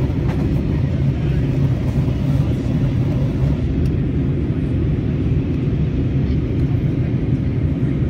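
Steady low rumble of an Airbus A320-family airliner in flight, jet engines and airflow heard from inside the passenger cabin.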